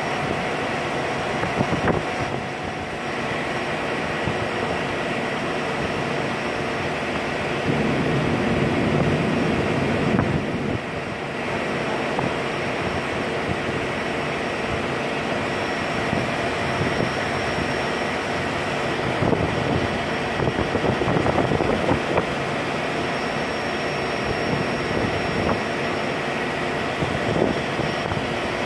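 Steady drone of a cargo ship's engine under way, heard on the open deck, with a thin steady whine riding over it.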